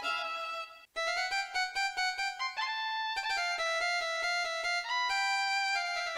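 Yamaha PSR-E373 portable keyboard playing a melody in one of its preset instrument voices. A held note ends with a short gap about a second in, then a phrase of separate notes follows.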